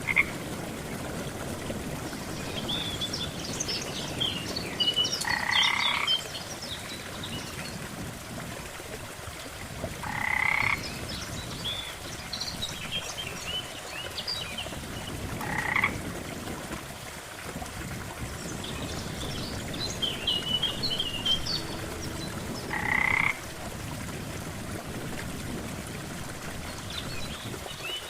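Frogs croaking: a loud call lasting under a second, repeating about every five seconds, with clusters of fainter, higher chirps in between over a soft steady hiss.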